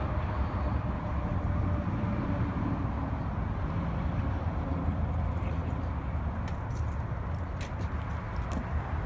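Steady low outdoor rumble, with a scatter of sharp clicks and taps in the last few seconds.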